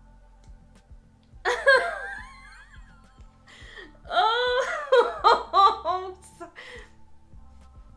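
A woman laughing: a short outburst about one and a half seconds in, then a longer run of repeated laughs from about four seconds in to nearly seven.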